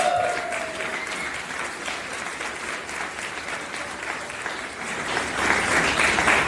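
Audience applauding, swelling louder near the end.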